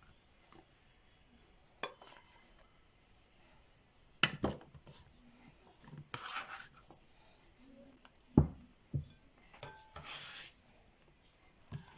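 Kitchen dishes and utensils knocking and clinking as sliced oranges are moved into a container. There are a handful of separate knocks, the loudest about eight seconds in, with short scraping swishes between them.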